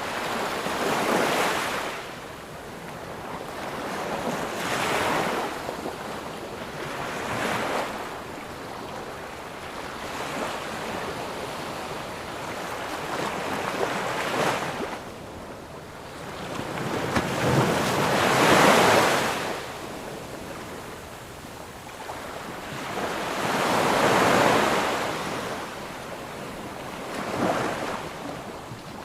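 Sea waves breaking and washing up on a sandy beach, in about seven swells of surf that rise and fall, the loudest about eighteen seconds in.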